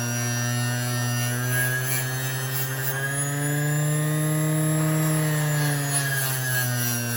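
Fiber wheel spinning on its motor with a steady hum, the knife being cleaned against it. About three seconds in the pitch rises, holds for a couple of seconds, then settles back.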